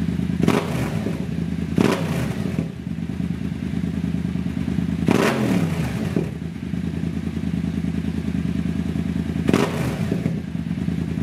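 Yamaha FZ-07's 689 cc parallel-twin idling through a freshly installed Two Brothers full exhaust system with its baffle removed, the throttle blipped about four times so the revs jump and fall back to idle. Very loud.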